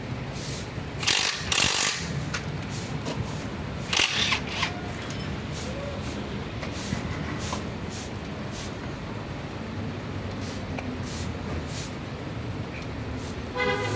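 Scattered light metallic clicks and knocks of hand work on a stripped diesel engine and its wiring harness, over a steady low background hum, with two short louder noisy bursts in the first few seconds.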